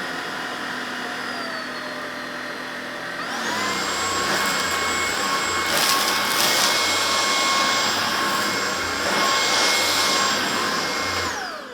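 Tineco Pure One X cordless stick vacuum running on thick pile carpet. About three seconds in, its motor whine steps up to a higher pitch and gets louder as it switches into max mode. Just before the end it winds down and stops.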